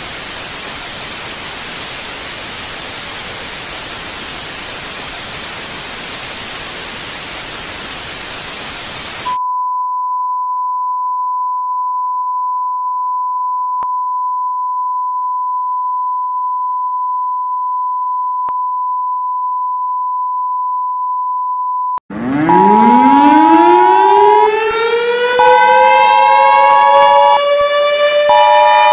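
TV static hiss for about nine seconds, cutting to a steady test-pattern tone at about 1 kHz. After about 22 seconds a civil-defense-style siren winds up, rising in pitch and settling into a steady wail, while a two-tone emergency alert beep sounds over it in on-off pulses of about two seconds.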